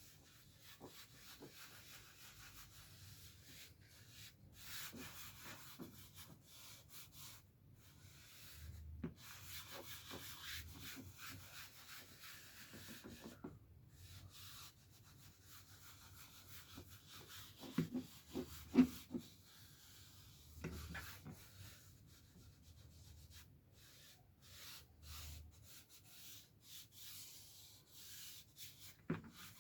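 Faint, irregular rubbing of an applicator pad or cloth working polish over plastic car bumper trim. A few louder knocks and taps come a little past the middle.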